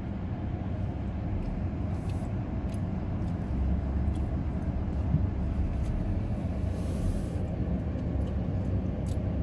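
Steady low rumble of a car's engine and tyres heard from inside the cabin while driving slowly, getting a little louder about three and a half seconds in.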